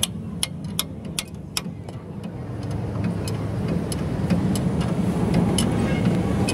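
Sharp metallic clicks of a wrench working the bolts of a truck's torque rod bushing mount, about two or three a second at first and then sparser, over a steady low hum that grows louder from about halfway through.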